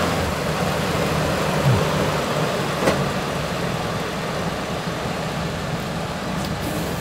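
OBS Chevrolet pickup's engine idling steadily, with a short knock about three seconds in.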